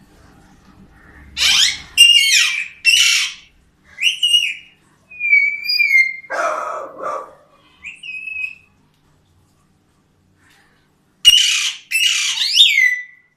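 A bird calling in a varied series: three harsh screeching calls with falling sweeps, then clear whistled notes, one of them held briefly, and a lower, rougher call about six seconds in. After a pause of about two and a half seconds come more harsh calls with quick downward sweeps.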